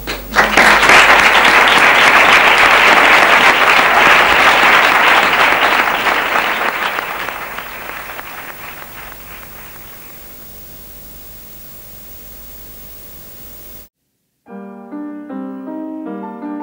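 Audience applauding, loud at first and dying away over about ten seconds. After a brief cut to silence, piano music starts near the end.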